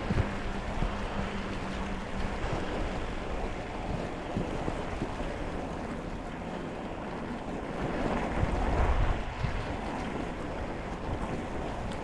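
Mountain bike tyres crunching through fresh snow, mixed with wind buffeting the microphone; the noise swells for a stretch around eight to nine seconds in.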